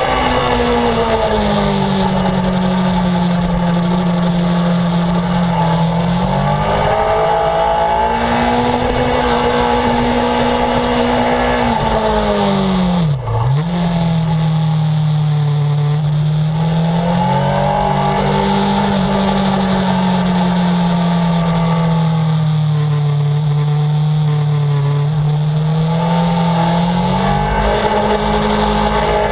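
Honda CBR1000RR Fireblade's inline-four engine running at high revs under load, with wind rushing past the bike. The pitch slowly rises and falls, with one brief sharp dip in pitch and loudness about thirteen seconds in.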